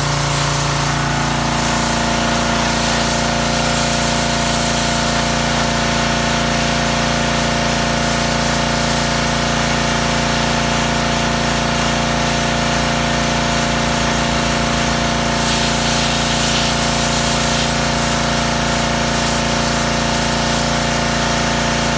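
Pressure washer running steadily, with the hiss of its water jet spraying against brick.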